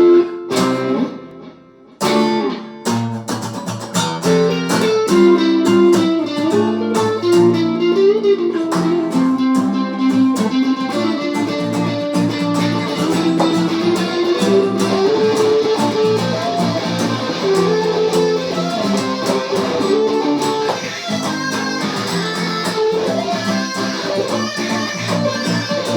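Guitar jam: a loud struck chord, a brief drop about a second in, then a steady, dense run of picked notes.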